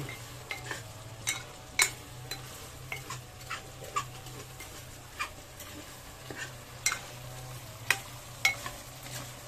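A metal ladle stirring chicken in a thick, reduced sauce in a clay pot, with irregular clicks and scrapes of the ladle against the pot over a faint sizzle from the hot sauce. A steady low hum runs underneath.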